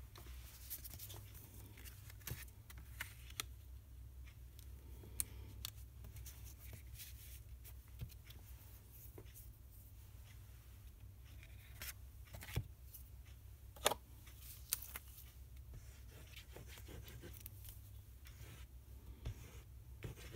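Scattered light clicks and taps of card stock and craft supplies being handled on a desk, over a low steady hum.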